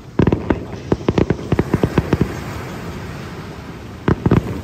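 Fireworks display shells bursting in a rapid string of sharp bangs, about a dozen in two seconds, then a short lull and another quick cluster of bangs near the end.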